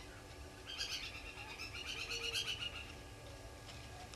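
Blacksmith lapwing calling: a quick run of sharp, high, clinking notes lasting about two seconds, starting just under a second in.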